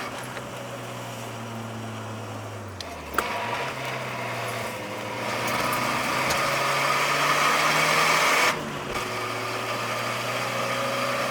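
Nissan S13 240SX engine heard from inside the cabin on a mountain road run: the engine note falls as it slows, a sharp click sounds about three seconds in, then the engine pulls harder with its note slowly rising for several seconds before the throttle lets off suddenly and it settles to a steadier, quieter note.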